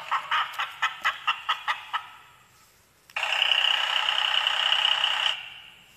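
Recorded hen clucking played from a children's sound book's button panel, a quick run of about five clucks a second for two seconds. About three seconds in, a second recorded sound plays steadily for about two seconds.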